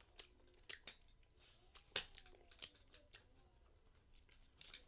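Quiet wet mouth clicks and smacks from lips sucking sauce off fingers, about half a dozen short sharp ones spaced irregularly, dying away over the last second or so.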